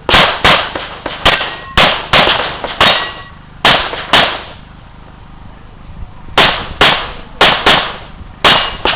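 Glock 17 9 mm pistol firing a fast string of shots, each with a short echo, often in quick pairs. A pause of about two seconds comes midway, then another burst of rapid shots.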